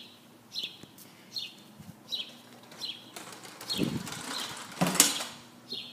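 A bird calling over and over, a short falling chirp about once every three-quarters of a second. From about three seconds in, a rush of rustling and handling noise builds over it, loudest about five seconds in.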